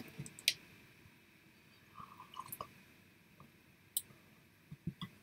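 A man drinking from a mug: a few faint, scattered sips and small clicks, with a short cluster of soft slurps about two seconds in.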